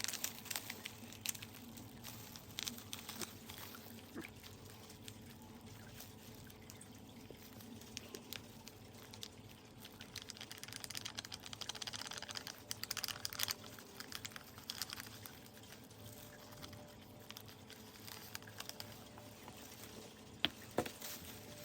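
Faint handling noises from gloved hands working with white cement and water for a miniature fireplace kit: scattered small clicks and taps with rustling, and a stretch of hissy scraping about eleven to thirteen seconds in.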